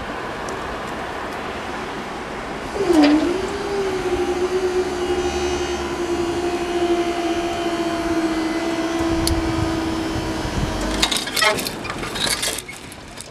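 Level crossing barrier motor starting up with a short dip in pitch about three seconds in, then a steady hum as the barriers are driven, stopping about eleven seconds in and followed by several clunks of the mechanism.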